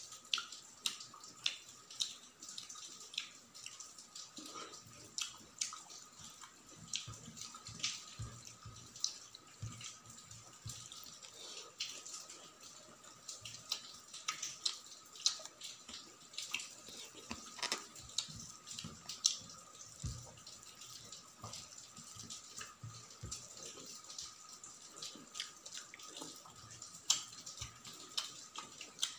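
Close-miked wet eating sounds: fingers squelching rice and gravy together on a steel plate, with chewing and lip smacks, as a steady run of irregular wet clicks and smacks.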